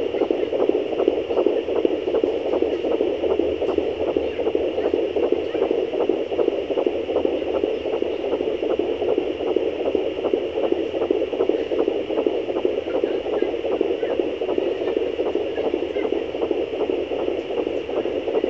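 Fetal heartbeat at 13 weeks of pregnancy picked up by a pocket fetal doppler: a fast, even pulsing whoosh over the doppler's steady hiss.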